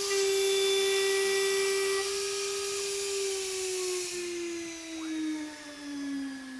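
High-speed CNC router spindle whining at about 21,000 rpm while an end mill cuts 6061 aluminum, over a high hiss. About three seconds in, the whine starts to fall steadily in pitch as the spindle slows. The hiss dies away about four seconds in.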